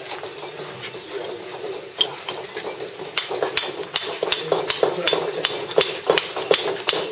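Mallet tapping a wide wooden-handled chisel along an edge of Bath stone: quick, light blows that chip off the waste down toward the marked line. The blows are sparse for the first couple of seconds, then come steadily at about four a second.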